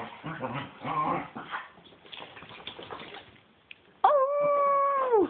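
Cocker spaniel making rough, grumbling vocal noises, then letting out one loud, steady howl about four seconds in that holds its pitch for over a second and drops away at the end.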